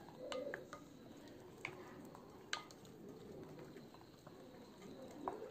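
Wooden spoon stirring a thick yogurt and spice paste in a glass bowl: faint wet squishing with scattered light clicks of the spoon against the glass, the sharpest about two and a half seconds in.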